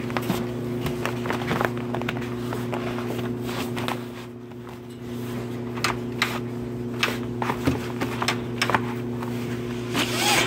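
Scattered small clicks and taps of objects and packaging being handled, over a steady low electrical hum; the hum dips briefly about four seconds in, and the clicks come thicker and louder from about six seconds in.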